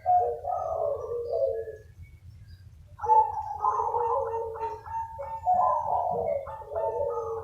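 Zebra doves cooing: quick strings of bubbly, stuttering coos from more than one bird, overlapping as they answer each other. One phrase ends about two seconds in, and after a break of about a second a longer run of overlapping calls follows.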